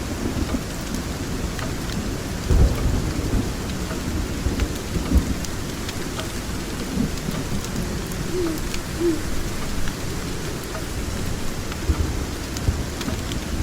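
Steady rain with low rumbling thunder that swells about two and a half and five seconds in, over faint scattered crackles.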